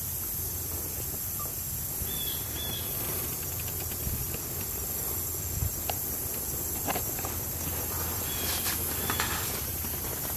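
Woodland ambience: a steady high-pitched insect buzz, with a few short faint chirps about two seconds in and scattered light clicks and rustles.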